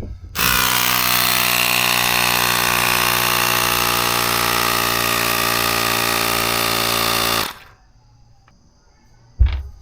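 A small motor-driven machine running steadily with an even buzzing hum and hiss, starting about half a second in and cutting off after about seven seconds. A short knock follows near the end.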